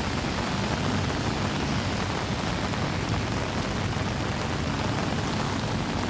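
Torrential typhoon rain pouring steadily, with scattered sharp drop ticks over a low rumble.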